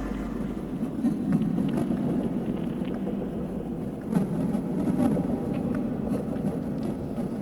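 Steady low rumbling noise, with a faint patter of rain falling.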